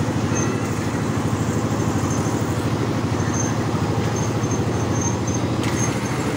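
Small engine running steadily with a fast, even throb.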